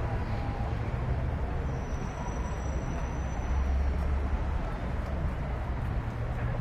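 Steady low outdoor rumble of background noise, like distant traffic, with no clear single event.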